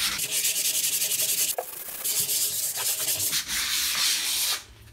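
Sandpaper rubbed by hand in quick back-and-forth strokes over a dried gesso coat on a wooden cradled board, smoothing out bumps in the gesso. The scratching stops shortly before the end.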